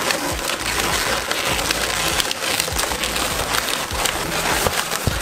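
Inflated latex modelling balloons (260s) rubbing and squeaking against each other and the hands as a white balloon is pulled across and tied on. It makes a dense, continuous run of small crackles.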